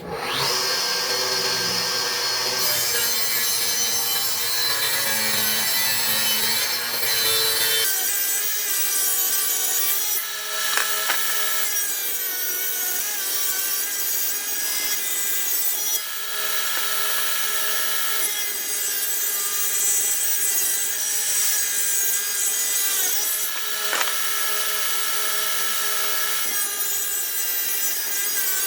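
Electric power tool running steadily while it cuts or works a piece of wood. It starts abruptly, and its lower hum drops away about eight seconds in.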